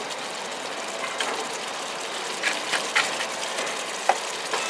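Curry sauce sizzling in a pan with a steady hiss, and a few sharp clinks of a utensil against the pan.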